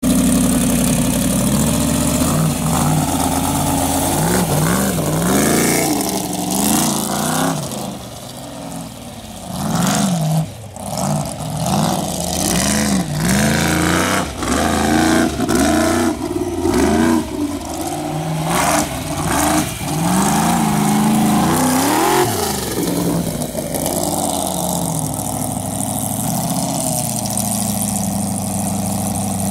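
Formula Offroad buggy's engine running at a steady pitch, then revving hard in repeated rising-and-falling surges as it climbs a steep sand slope, and settling back to a steadier run near the end.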